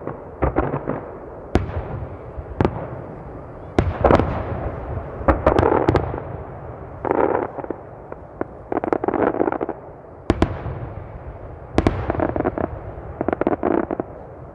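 Aerial firework shells bursting in quick succession: many sharp bangs, with dense stretches of overlapping bursts lasting up to about a second.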